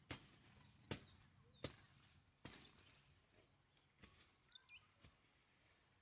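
Near silence: quiet outdoor ambience with a few faint, short, high chirps and about six sharp clicks roughly a second apart.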